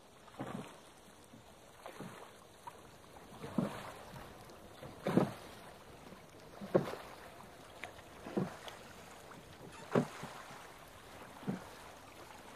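Oars rowing a small wooden boat: a short stroke sounds about every one and a half seconds, evenly paced.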